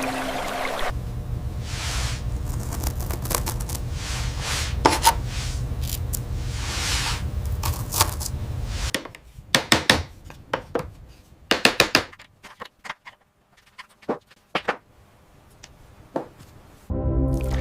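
Close handwork at a craft bench: repeated rubbing and scraping strokes with a few sharp clicks over a steady low hum for about the first half, then the hum stops and only scattered light taps and clicks remain.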